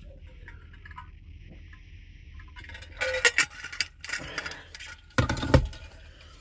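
Handling noise: clattering, clinking and rustling starting about three seconds in, ending in a heavy bump, over a steady low hum.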